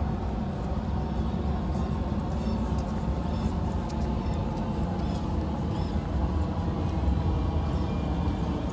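Steady low rumble of distant city traffic, with a few faint high chirps every couple of seconds.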